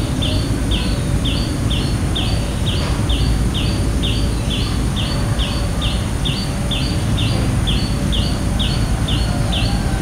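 A short, high-pitched downslurred chirp repeated steadily, nearly three times a second, over a constant low rumble of background noise.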